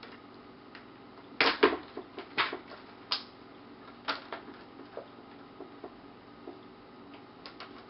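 Plastic clips of an Asus X501A laptop's screen bezel snapping loose as the bezel is pried off by fingernails: a scattered series of sharp clicks, the loudest pair about one and a half seconds in.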